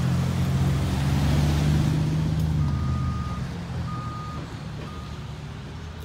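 A heavy engine drones low and steadily, fading away over the first couple of seconds. Then three short electronic beeps sound at one pitch, about a second apart, over faint traffic noise.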